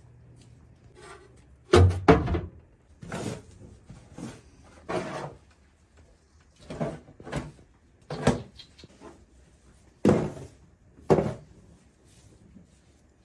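An irregular series of knocks and thuds, about a dozen over ten seconds, the loudest about two seconds in and again near ten seconds.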